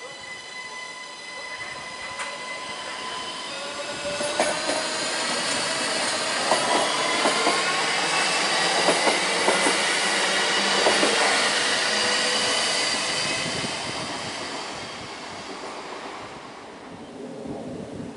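SNCB AM 08 (Siemens Desiro ML) electric multiple unit pulling away and passing. Its electric drive whines, rising in pitch as it gathers speed, and the wheels click over rail joints as it goes by. The sound fades near the end.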